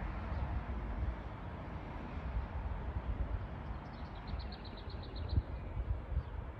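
Outdoor garden ambience with an uneven low rumble on the microphone. About four seconds in, a bird gives a short, rapid trill of about ten high notes lasting just over a second.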